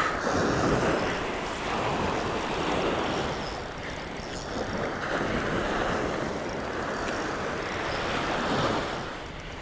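Small waves breaking and washing up the sand, rising and falling in slow swells, with wind buffeting the microphone.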